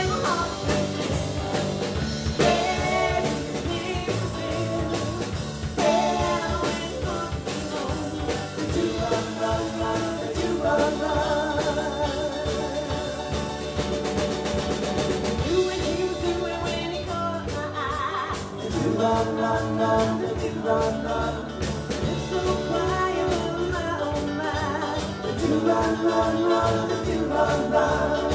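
Live rock and roll band playing: electric guitar, electric bass, drum kit and keyboard.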